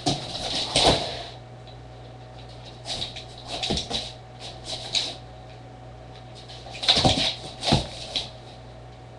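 Weimaraner's claws and paws scrabbling and thumping on a wooden floor as it pounces on a laser dot, in several short flurries of clicks and scrapes.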